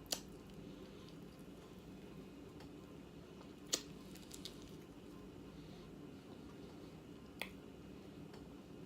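Faint eating sounds: three sharp mouth clicks a few seconds apart, over a low steady hum.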